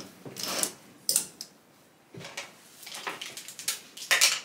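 Plastic clothes hangers clacking on a wardrobe rail and against each other, with clothes rustling as garments are hung and moved. It comes as a string of short, irregular clatters, the loudest near the end.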